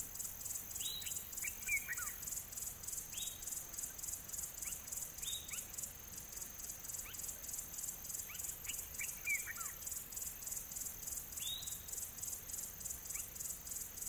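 Nature ambience: a steady, evenly pulsing high insect trill, with short bird chirps and whistles every second or two.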